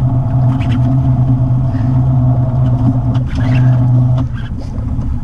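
Off-road vehicle engine running at a steady pitch, easing off briefly about three seconds in and again near the end, with scattered short knocks over it.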